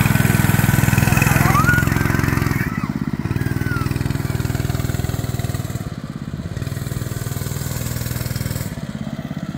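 Small single-cylinder engine of a fat-tyre mini bike running under way with riders aboard. It is strongest for the first couple of seconds, then eases off, dipping again around the middle and near the end as the throttle is let off and opened.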